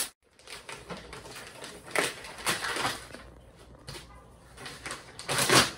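Tissue paper and a paper gift bag rustling and crinkling as presents are pulled out and unwrapped, in a few short spells, the loudest near the end.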